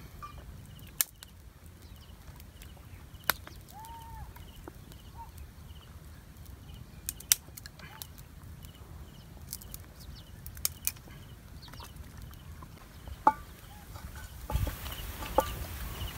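Scattered sharp snaps and crackles from a small twig campfire and sticks being handled, with one short bird call about four seconds in. Near the end comes a burst of rustling and knocking as a metal pot is set on the fire.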